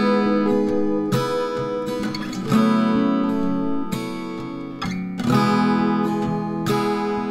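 Background music: acoustic guitar chords strummed at an easy, regular pace.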